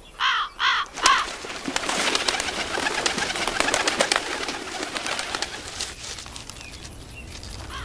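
Crows calling three times in quick succession, harsh caws in the first second or so, followed by a steady rustling hiss scattered with small clicks that dies away near the end.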